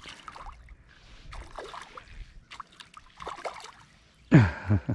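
Water splashing in several short bursts as a hooked panfish thrashes at the surface. Near the end a man gives a brief exclamation that falls in pitch.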